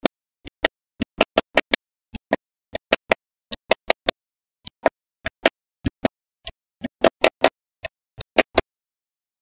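Small neodymium magnetic balls snapping onto a magnet-ball build, as strips are pressed into place: a run of sharp, separate clicks at an uneven pace of about three a second, with dead silence between them.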